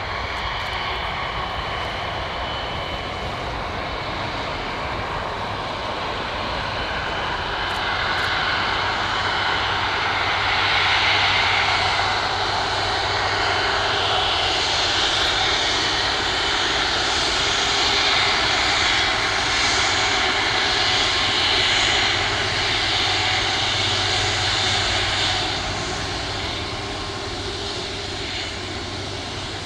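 Airbus Beluga XL's twin Rolls-Royce Trent 700 turbofans running at low power as the aircraft rolls along the runway: a steady jet rumble with a wavering whine on top. It swells about a third of the way in, stays loud through the middle, and eases off near the end.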